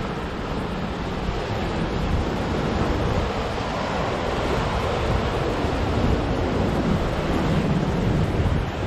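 Ocean surf breaking on a rocky shore, a steady wash of noise, with wind rumbling on the microphone.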